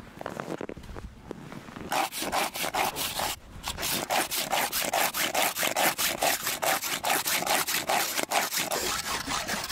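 Hand saw cutting through frozen fish with steady back-and-forth strokes, about two a second, starting about two seconds in.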